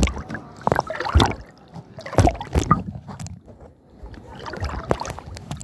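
Water splashing and sloshing in irregular strokes, the sound of wading or moving through shallow seawater, with a few louder splashes in the first three seconds.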